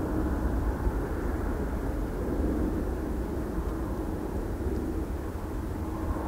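Boeing 787-8 Dreamliner with Rolls-Royce Trent 1000 engines on final approach, its engines a steady low rumble heard from a distance, with a faint steady hum running through it.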